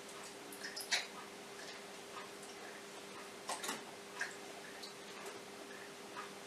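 A spoon scraping passion fruit pulp from its shell into a smoothie maker jug, with irregular light clicks and taps, loudest about a second in and again around three and a half seconds in. A faint steady hum runs underneath.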